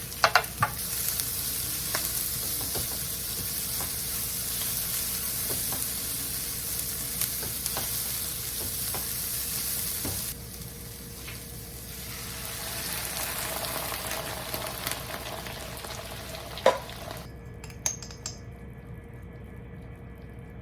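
Food sizzling in a pan, with a few sharp knocks of a utensil. The sizzle dips briefly about ten seconds in and cuts off suddenly near the end.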